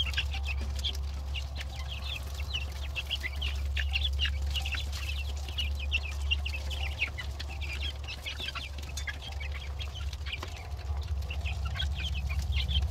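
A flock of young F2 olive egger chickens calling, a steady stream of short, high, overlapping peeps and chirps.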